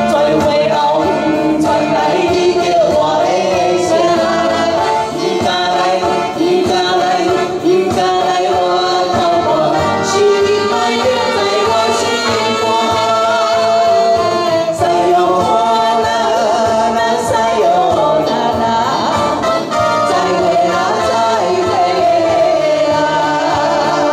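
A live band performing a song: a man singing through a microphone and PA over electronic keyboard backing, with a saxophone playing along.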